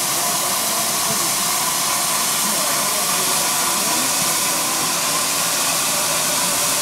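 Steady hiss of escaping steam from GWR 2884-class 2-8-0 steam locomotive 3803.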